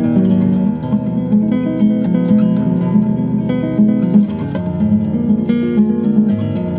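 Background music: an acoustic guitar playing a steady run of plucked and strummed notes.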